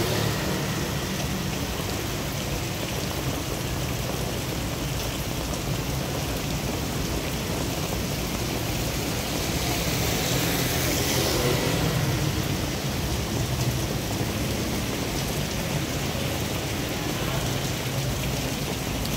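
Steady rain falling on a wet city street, with the swish of vehicle tyres passing on the soaked road. The traffic noise swells a little about ten to twelve seconds in.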